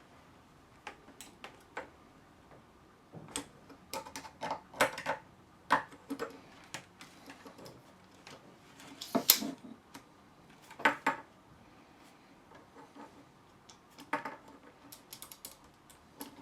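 Scattered small clicks and clatters from the parts of a disassembled telescopic suitcase handle mechanism being handled and worked, coming in irregular clusters with short pauses between.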